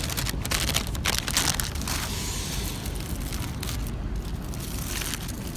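A paper takeaway bag and aluminium foil crinkling and crackling as a wrapped sandwich is pulled out and unwrapped by hand, in uneven bursts of rustling, over a steady low rumble.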